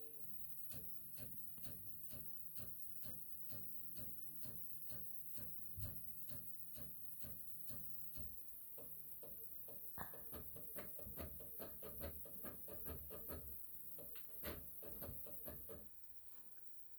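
3D printer stepper motors moving the axes with a regular ticking about twice a second, turning into a faster run of clicks with a motor whine about ten seconds in, then stopping about a second before the end. This is the chatter and bouncy sound the owner blames on a fault with the Y-axis motor.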